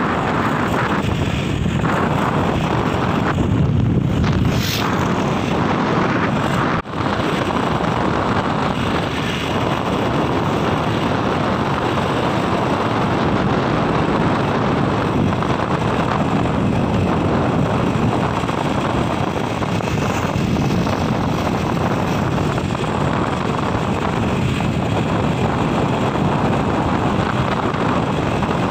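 Steady rush of wind on the microphone of a phone carried on a moving motorcycle, with road and engine noise beneath. The sound drops out for a moment about seven seconds in.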